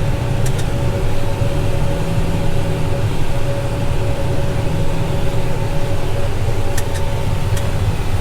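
A heavy vehicle's engine running steadily at constant speed: a low, even drone with a faint steady whine above it.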